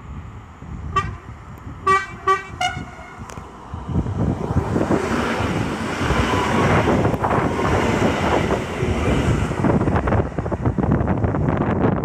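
Electric passenger train sounding short horn toots as it approaches, four blasts with the last one higher in pitch. It then passes close by at speed with a loud rumble and rush, and the wheels click over the rail joints near the end.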